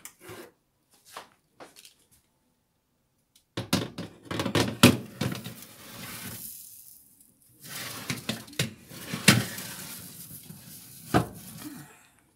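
Metal baking tray scraping and clanking against the oven rack and runners as it is slid into the oven, in two bouts of clatter with a few sharp knocks, starting about three and a half seconds in.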